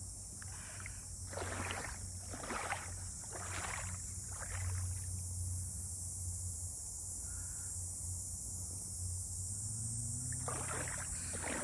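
Footsteps wading through shallow creek water: four sloshing steps about a second apart, then more near the end, over a steady high hiss.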